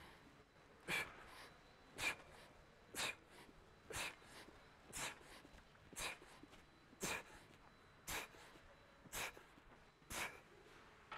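A lifter's short, sharp exhales, about one a second and ten in all, one on each press of a barbell bench-press set.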